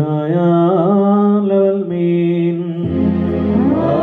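A man chanting a liturgical melody in slow, held and gliding notes through a microphone. About three seconds in, a low steady note and more voices join in.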